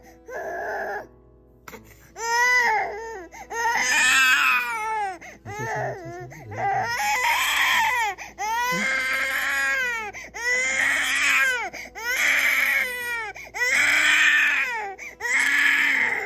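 A baby crying in a string of about nine long wails, with short breaths between them; he is unwell and fussy with a cold.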